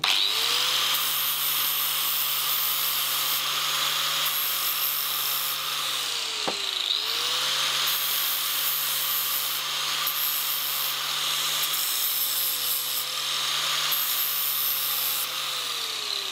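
Angle grinder with a flap disc running and grinding a chamfer on the end of a half-inch mild steel bar. It spins up at the start, winds down and is switched straight back on about six and a half seconds in, then runs again until it winds down near the end.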